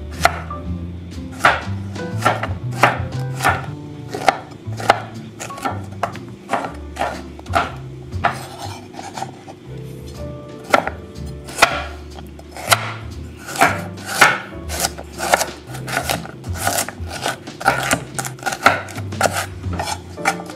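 Chef's knife chopping zucchini and carrot on a wooden cutting board: a steady run of sharp, uneven knocks, a few a second.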